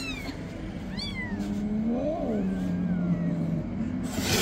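Two high, falling mews from newborn kittens, then a long low growling yowl from the feral mother cat that rises, falls and holds for about two seconds: an angry, defensive cat. A short hiss near the end.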